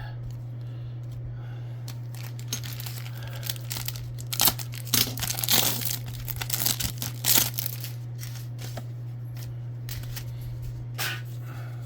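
A trading-card pack's wrapper being torn open and crinkled: a run of irregular crackles and rips, thickest in the middle of the stretch, over a steady low hum.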